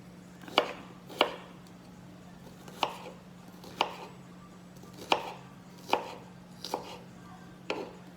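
Knife chopping on a cutting board: about eight separate, unhurried strokes, roughly one a second.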